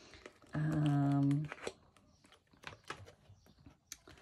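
A woman's voice gives a short held sound at one steady pitch, lasting about a second. It is followed by light, scattered clicks and rustles of paper and plastic as the pages of a disc-bound paper planner are flipped.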